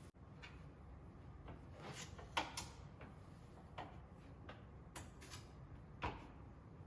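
A handful of light, scattered clicks and knocks of plastic coffee-maker parts being handled and fitted, with faint room tone between them.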